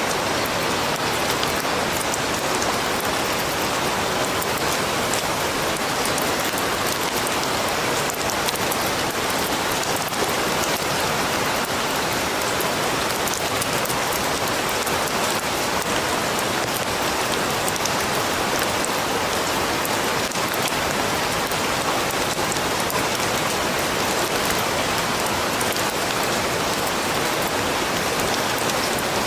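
Steady rain falling and pattering on surfaces in a forest, a dense even hiss with many fine drop ticks.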